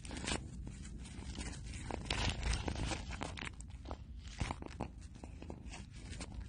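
A cat crunching and chewing dry food: a run of irregular crunches and clicks, thickest about two seconds in.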